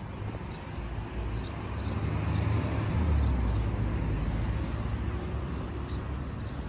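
Outdoor seafront ambience: a low, uneven rumble that swells a couple of seconds in, with faint high chirps over it.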